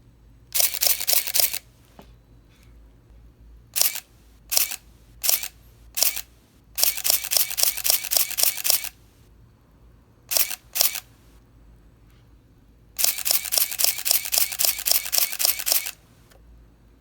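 Contax RTS III 35mm SLR's shutter and built-in motor drive firing. A one-second run of rapid frames comes first, then four single shots well under a second apart, a two-second run, two quick single shots, and a final run of about three seconds.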